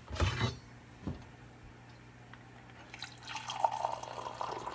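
A short clatter at the start, then liquid pouring from about three seconds in.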